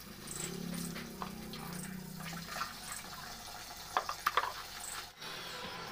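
Tap water running into a bucket and splashing while clothes are washed and wrung out by hand, with a few sharp splashes about four seconds in.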